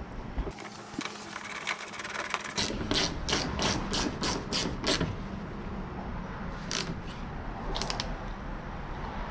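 Ratchet wrench driving a 10 mm bolt back in: a quick, dense run of clicks, then about seven slower, evenly spaced clicks, with a few more scattered clicks later on.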